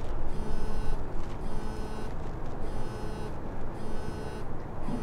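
A car's electronic warning chime beeping about once a second, each buzzy beep about half a second long, over a steady low rumble.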